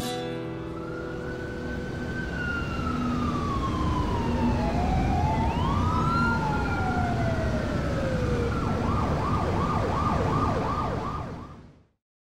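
A siren wailing in slow rising and falling sweeps, then switching to a fast yelp about nine seconds in, over a low rumble. It fades out just before the end.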